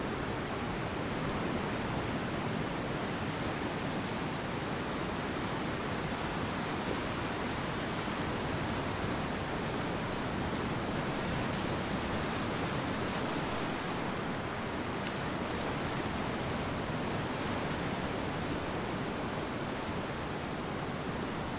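Ocean surf washing on a beach: a steady, even rush of breaking water with no distinct single waves standing out.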